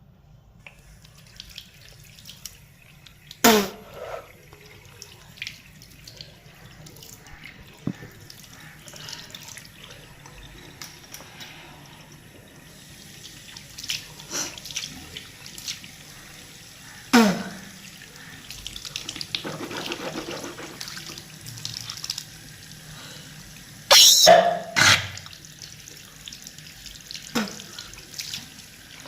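A person gagging and coughing hard over a sink, four loud retches that each drop sharply in pitch, spread through the stretch. Tap water runs into the sink in the middle, and there are small splashes and drips. The gagging is the gag reflex set off by brushing the teeth and cleaning the tongue.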